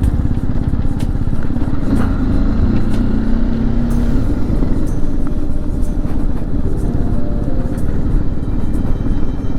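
BMW G310GS single-cylinder motorcycle engine running under way, a steady low rumble, its pitch rising briefly a couple of seconds in as it picks up speed.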